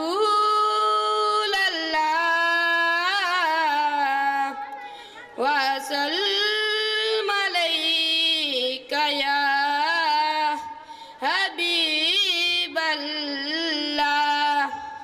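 A boy singing a naat solo and unaccompanied into a microphone: long drawn-out notes with ornamented runs, in several phrases with short breaks for breath between them.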